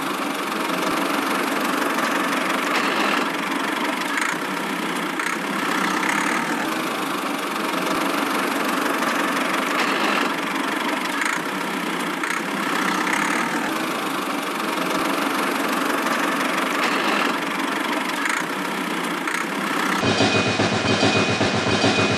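Tractor-like engine running steadily under a miniature toy tractor hauling its trailers. About 20 s in the sound changes to a deeper rattle with a thin, steady high tone.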